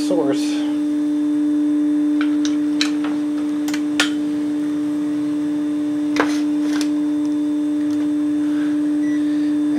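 A steady, loud, single-pitched hum with a few sharp clicks about three, four and six seconds in.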